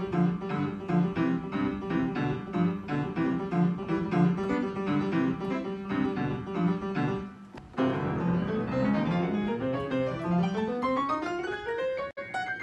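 Upright piano played solo: quick short repeated notes, a brief break about seven and a half seconds in, then a run of notes climbing up the keyboard.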